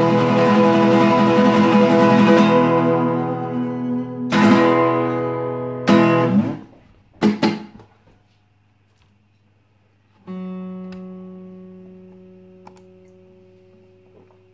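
Acoustic guitar strummed, its closing chords ringing and fading. Two more strums come about four and six seconds in, cut short by a few muted strikes. After a brief near-silence, one low note is plucked about ten seconds in and rings out, fading slowly.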